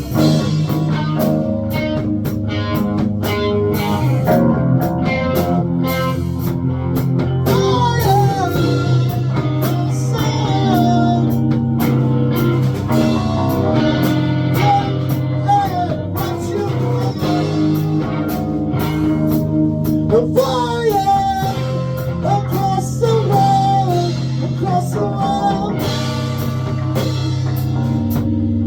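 Blues-rock music with guitar, bass and drums, and a lead line with bending notes about a third of the way in.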